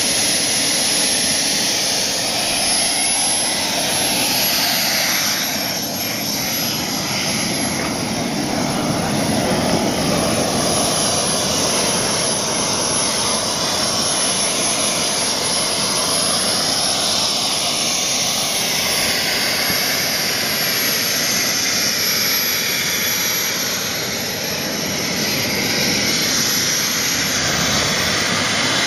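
Small gas-turbine engine of a radio-controlled model jet running: a steady rushing roar under a thin high whine that wavers slightly and climbs near the end.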